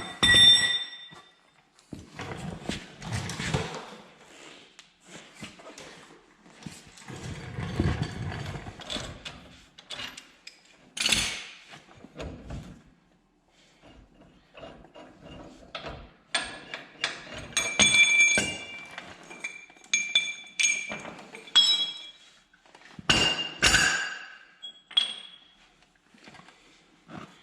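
Steel hand tools and a ball joint press clinking and knocking as a new press-in ball joint is pressed into place, with irregular metallic pings that ring briefly, thickest in the second half.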